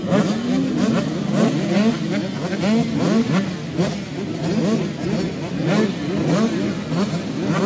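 A line of 85cc two-stroke motocross bikes idling and revving together at the start gate, many engines blipping their throttles over one another in overlapping rising and falling pitches.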